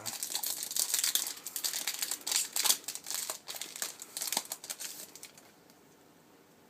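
Foil booster-pack wrapper crinkling as it is torn open and handled, in quick irregular crackles that stop about five seconds in.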